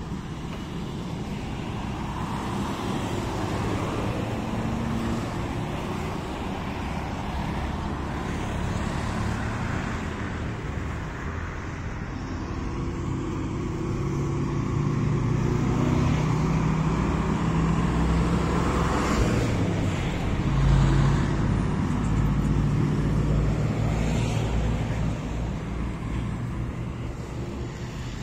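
Street traffic: the rumble of cars and engines driving along the road, growing louder past the middle as a heavier engine passes, then easing off near the end.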